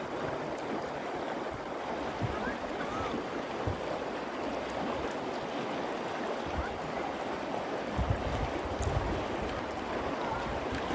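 A river flowing steadily with an even rushing sound, with a few low rumbles near the end.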